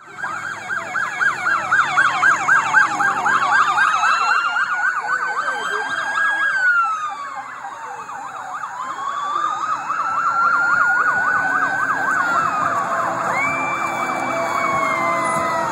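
Several police car sirens sounding at once, overlapping fast warbling yelps with slow rising-and-falling wails, switching patterns as the escort passes.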